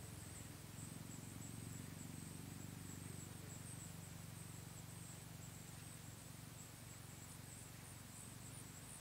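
Faint outdoor ambience: insects trilling steadily at a high pitch, pulsing a little, over a low steady hum. No gunshot.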